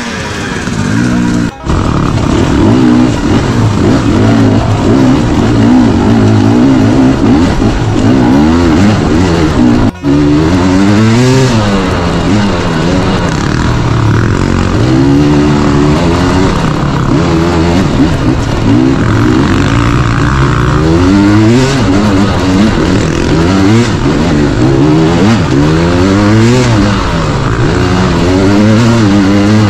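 Off-road dirt bike engine being ridden hard, its pitch swinging up and down over and over as the throttle opens and closes and the rider shifts gears. The sound cuts out for an instant twice, about a second and a half in and about ten seconds in.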